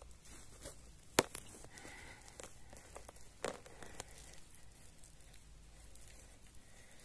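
Quiet rustling and crackling with scattered clicks: one sharp click about a second in and a louder crackle about three and a half seconds in.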